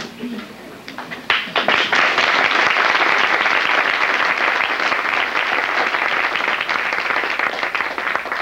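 Audience applauding: a few scattered claps about a second in, swelling quickly into full, steady applause that begins to thin out near the end.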